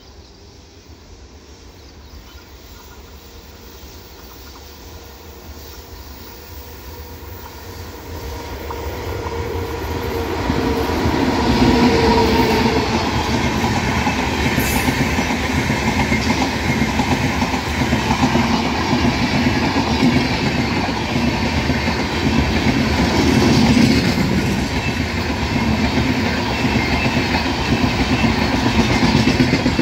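Express passenger train hauled by a WAP-4 electric locomotive, approaching and running past at speed. Its noise builds over the first ten seconds or so, then holds as a loud, steady rumble and rush of coach wheels on the rails.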